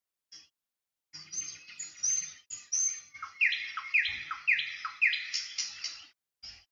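Small birds chirping: short high chirps, then a run of about five falling notes about half a second apart, followed by more chirps.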